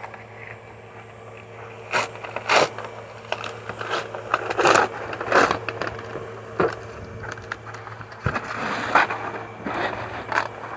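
Irregular scraping and rustling, a person crawling under a pickup truck with the camera in hand, over a steady low hum.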